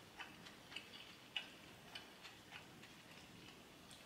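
Near silence with faint eating sounds: about ten soft, short clicks at irregular spacing, from chewing and chopsticks working noodles in a glass bowl.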